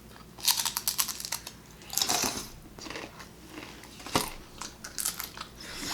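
Close-up chewing of crunchy food, with clusters of crisp crackling crunches every second or so: bites of fried sopes with lettuce and toppings.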